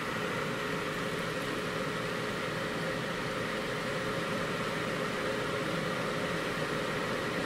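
Steady electric fan whir with a constant thin hum from a 1500-watt ceramic space heater running off a solar battery bank's inverter, drawing about 890 watts.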